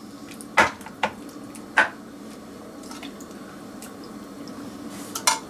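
A spoon serving thick dal from a metal pot onto a steel thali plate: a few sharp clinks of the spoon against the metal, with soft wet squelches of the dal.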